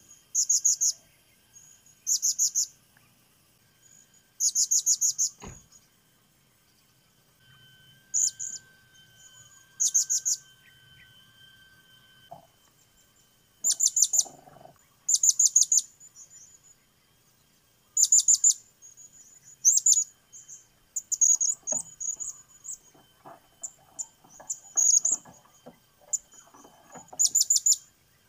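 Blue-crowned hanging parrots calling: short bursts of rapid, shrill, very high-pitched chirps, repeating every second or two and coming more often in the second half.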